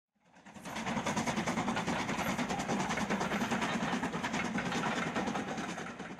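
Steam train running at speed, a steady rush with a fast, even beat, fading in just after the start and fading away near the end.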